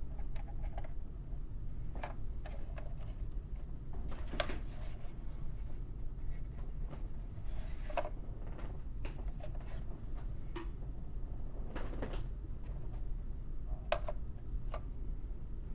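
Scattered light clicks and taps of a plastic A-wing toy being handled, over a steady low hum.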